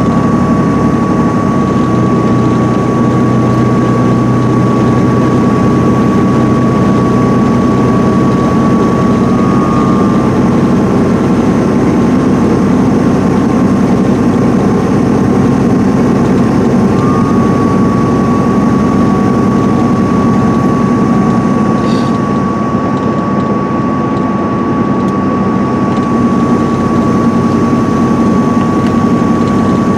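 Cabin sound of a 2010 MCI D4500CL coach cruising at highway speed: the Cummins ISM diesel engine drones steadily under tyre noise from the wet road. A thin, steady high whine sits above it, wavering briefly twice.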